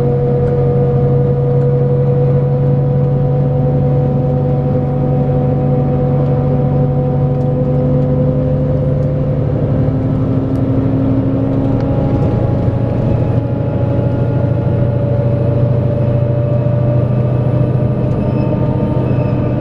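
Scania K410 coach's 13-litre six-cylinder diesel engine running under steady load with road noise, its pitch rising slowly as the coach gathers speed. There is a change in tone about twelve seconds in.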